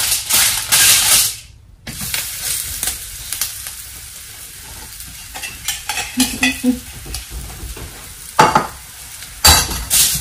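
Flatbread frying on a hot oiled flat iron tawa: a steady low sizzle. It is loud for the first second or so, cuts out abruptly, then returns quieter, with faint ticks and two short loud bursts near the end.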